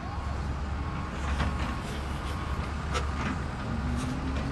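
Plastic Bruder CAT toy excavator worked by hand, its bucket scraping and scooping through dry ash and burnt debris with scattered light clicks, over a steady low rumble.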